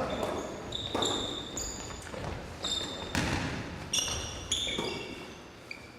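A ball bouncing on a gym floor with sneakers squeaking, echoing in a large hall: several sharp thuds and many short, high squeaks.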